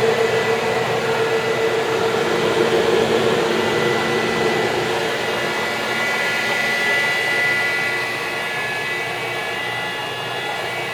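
Vectrax 17 x 60 inverter-drive lathe running: a steady mechanical hum and whine from its hydraulic gear-oil pump and cooling fans. One lower tone fades out about halfway through.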